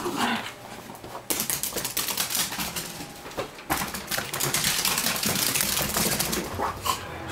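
Dachshunds' claws clicking and scrabbling rapidly on a hardwood floor as the dogs run about, starting about a second in.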